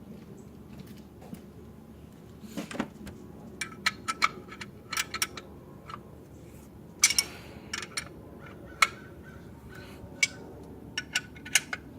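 Metal hand tools clicking and clinking irregularly against the engine's bolts and brackets as a bolt on the alternator mount is tightened with a wrench. Some clicks ring briefly, and the loudest come about seven and nine seconds in.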